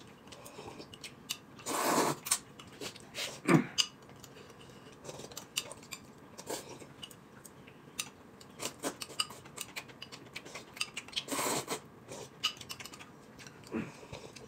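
Eating at the table: chopsticks clicking against ceramic bowls, with a few short louder slurps of noodles and soup.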